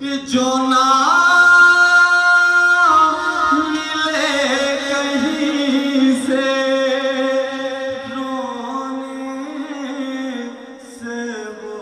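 A man singing a manqabat, an Urdu devotional praise song, solo into a microphone. He rises to a long held note about a second in and holds it for about two seconds, then sings ornamented phrases that waver up and down.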